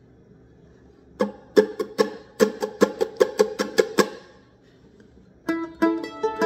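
Mandolin being picked: a quick run of evenly spaced, sharp picked notes, about five a second, starts about a second in and stops after about three seconds. After a short pause the picking resumes near the end with notes that ring on longer.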